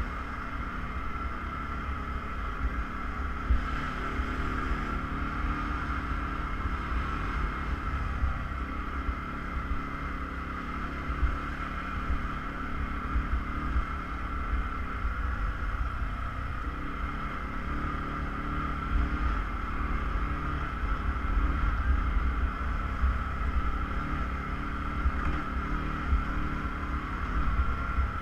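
Off-road vehicle engine running steadily while riding, with a continuous drone and a low rumble of wind buffeting the microphone.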